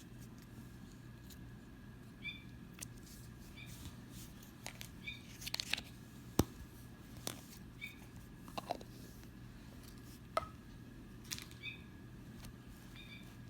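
Scattered light clicks and taps of fidget toys being handled, a dozen or so spread irregularly, some with a short pitched ring, over a steady low hum.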